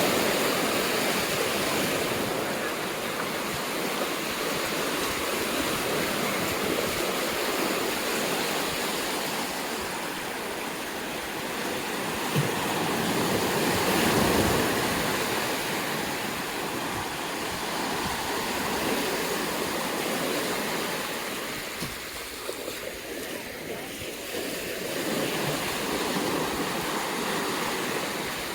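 Ocean surf breaking and washing up a sandy beach, a steady rush that swells and ebbs, loudest about halfway through.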